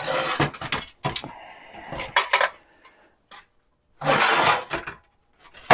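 Cracked cast iron part being turned over on a perforated steel welding table: a series of scrapes and clanks of metal on metal, with a longer scrape about four seconds in.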